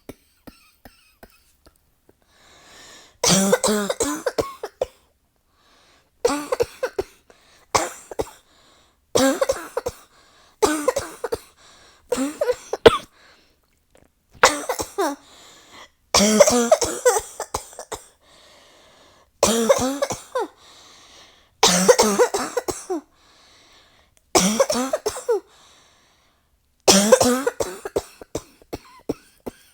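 A person in a long coughing fit: about a dozen bursts of several quick coughs each, every burst a second or two long, with short pauses between them.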